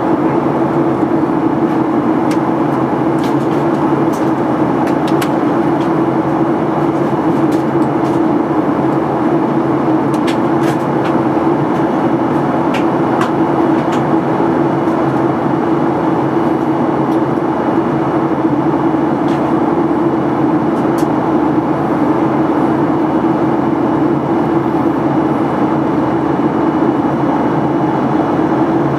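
Steady cabin noise inside a Boeing 737-800 in flight: its CFM56 turbofan engines and the airflow over the fuselage make an even rushing hum with a strong low drone that holds constant.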